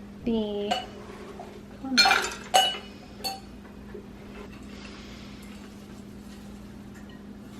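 Kitchen dishes clinking: three or four sharp clinks with a short ring, about two to three seconds in, as utensils and dishes are handled over the mixing bowl. A brief child's voice sounds just before them.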